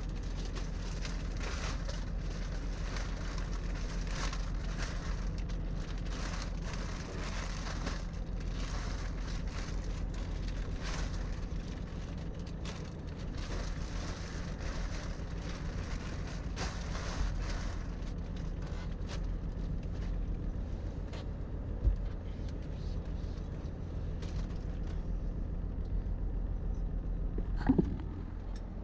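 Diesel truck engine idling steadily under crackly rustling as the new mattress and its wrapping are handled in the sleeper cab. The rustling fades about two-thirds of the way through, and there is a single sharp knock a little later.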